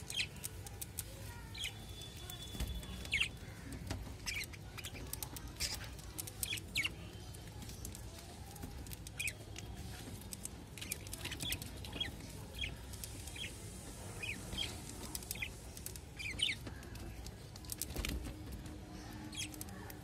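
Budgerigars chirping: many short, scattered chirps with a few brief whistled notes, irregular throughout.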